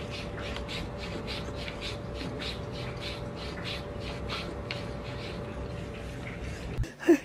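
Cat lapping water from a drinking glass, a quick even rhythm of about four small laps a second over a steady faint hum. In the last moment a louder, pitched sound cuts in.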